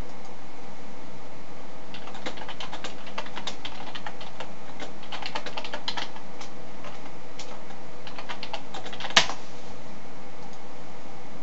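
Typing on a computer keyboard in quick bursts of key clicks, ending about nine seconds in with one louder sharp click, over a steady hiss.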